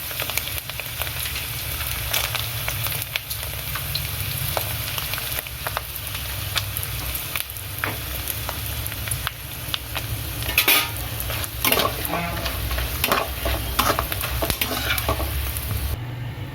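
Sun-dried vegetables (vathal) frying in plenty of hot oil: a steady sizzle full of small crackles, with a spoon stirring them in the pan and some sharper scrapes about ten to fifteen seconds in.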